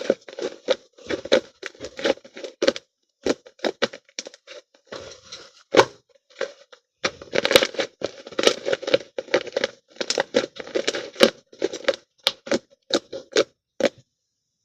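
Slime being squished and pressed by hand, giving bursts of sticky crackling and popping in repeated squeezes, until it stops near the end.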